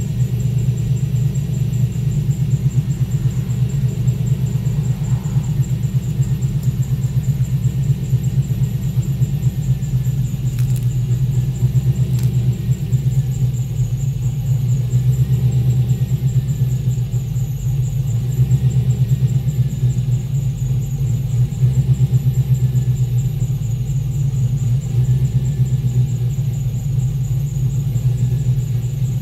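LS3 V8 in a 1978 Pontiac Trans Am idling steadily during warm-up after a cold start. Its exhaust gives a continuous low, pulsing rumble, with a faint steady high whine above it.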